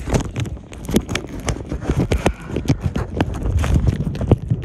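Irregular knocking, clattering and rubbing close to the microphone: handling noise from a phone or camera knocking about in a kayak while paddling.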